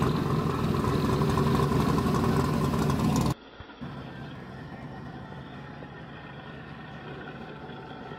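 Engine of a tubbed pro street Chevrolet Vega running loud as the car rolls slowly past. A little over three seconds in the sound cuts abruptly to a quieter, duller engine rumble as the car drives away.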